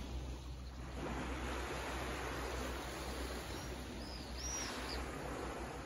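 Small waves lapping and washing onto a sandy beach on a calm sea, swelling and easing. A few short, high bird calls come about four seconds in.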